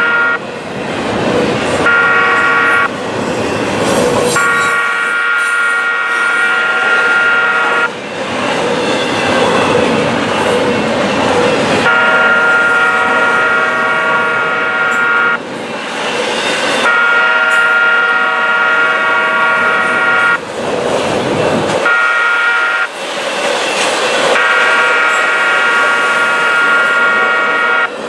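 Freight train cars rolling past, with a steady clatter of wheels on rail. Over it a multi-chime locomotive horn sounds several long blasts with short breaks between them, as the head end whistles for crossings down the line.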